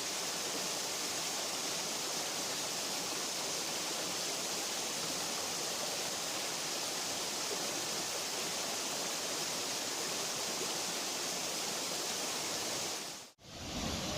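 Waterfall: a steady, even rush of falling water, hissy and bright. About 13 seconds in it cuts out for an instant and a deeper rushing takes over.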